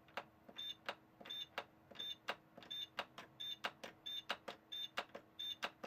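The Set button on a Real Meal Easy Bake Oven's timer being pressed over and over, about eight times: each press gives a plastic click and a short high beep as the timer steps up by a minute. A faint steady hum runs underneath.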